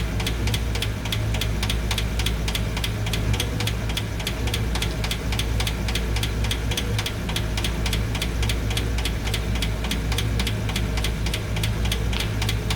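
V8 engine idling with a valve cover off, its valve train ticking sharply and evenly at about four ticks a second over a steady low drone. The ticking is the valve-train noise being chased to the hydraulic lifters, with oil now reaching the rocker shaft at low pressure.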